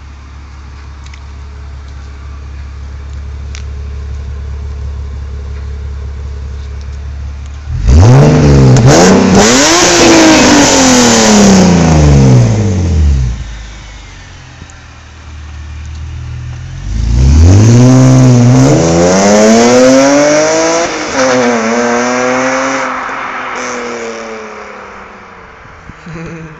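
BMW E46 330Ci's 3.0-litre straight-six through an aftermarket Schmiedmann and Eisenmann exhaust, running steadily at idle, then twice rising sharply in pitch and volume and falling away again. The second rise comes down in steps and fades out near the end.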